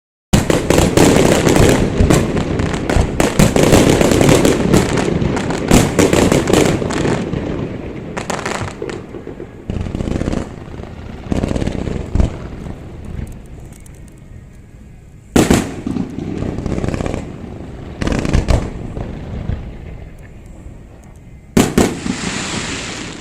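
Fireworks display: a rapid barrage of aerial shell bursts and crackle for the first several seconds, then single loud bursts every two to three seconds, each followed by a slowly fading rumble.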